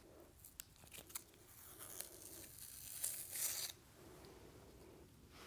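Faint clicks and handling of a press-on nail kit's adhesive tab sheet, then a brief tearing rasp about three seconds in as a sticky nail tab is peeled off its backing.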